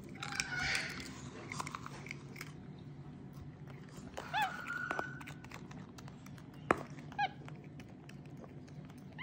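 Capuchin monkey giving a few brief, high, squeaky chirps that rise and fall in pitch, with light clicks and taps of plastic play-dough tools on the table and one sharp knock about two-thirds of the way in.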